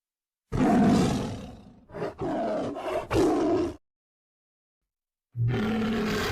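Creature roar sound effects for the Mighty Morphin Power Rangers Zords: a loud roar that fades away over about a second and a half, then a few short growls. After a gap of silence, another roar starts near the end.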